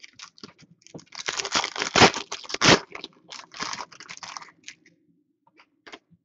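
Shiny plastic trading-card pack wrapper being torn open and crinkled, with a run of light clicks from cards being handled. The crinkling is loudest from about one to three seconds in, then thins to scattered crackles and a few clicks.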